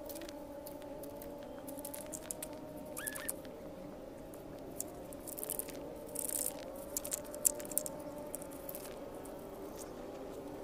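A long pole striking and raking through the branches of an amla (Indian gooseberry) tree, with scattered cracks, leaf rustling and fruit pattering down, the loudest crack near the end. Under it runs a steady, wavering background hum.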